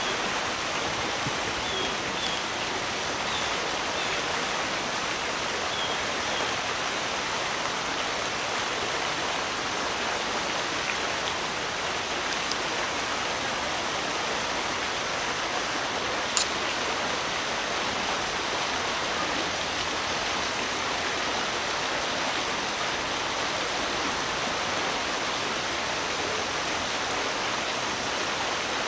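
Steady rush of water flowing among the rocks of a pool, with a single brief click about halfway through.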